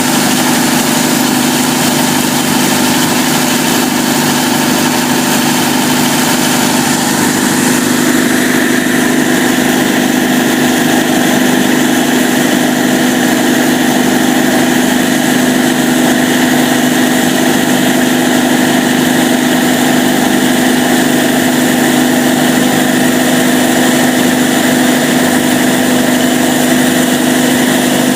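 Cummins KTA38-G4 diesel generator set running steadily, its turbocharged V12 diesel giving a loud, even drone with a strong steady hum. The sound changes slightly about eight seconds in.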